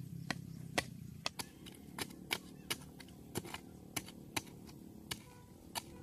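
Metal hoe blade striking stony dirt as a trench is dug by hand: sharp, irregular chinks and knocks, roughly two a second.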